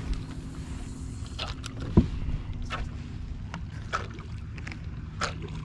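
A cast with a popping cork rig: about two seconds in the cork lands on the water with one loud, short bloop, then it is jerked and pops about every second and a quarter. Water laps steadily against the kayak hull underneath.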